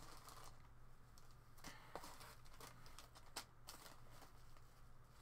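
Near silence with a few faint, scattered clicks and taps as small packaged miniature pieces are handled, over a low steady hum.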